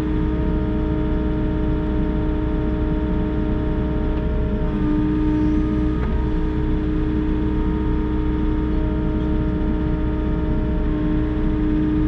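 Volvo EC60E mini excavator's diesel engine running steadily under load, heard from the operator's cab. Its tone shifts slightly about five seconds in and again near the end as the boom is worked.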